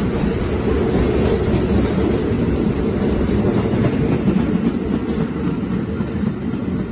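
R46 subway train running along the track: a loud, steady rumble with some clicking of the wheels over the rails.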